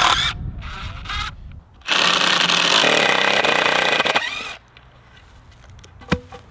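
Cordless drill driving a screw into a wooden brace board: a brief burst at the start, then a steady run of about two and a half seconds. Near the end, one sharp knock as a block of wood drops to the ground.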